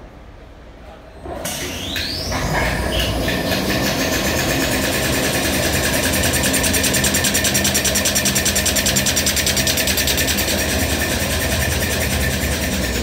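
Automatic toilet paper and kitchen towel converting line starting up about a second and a half in: a rising whine as it speeds up, then the machine running at speed with a fast, even mechanical rhythm.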